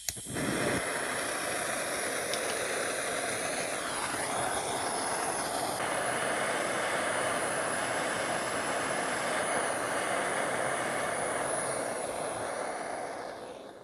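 Hose-fed gas torch lit with a click, then its flame hissing steadily as it heats a rusted nut and plate to free the seized nut; the hiss tails off near the end.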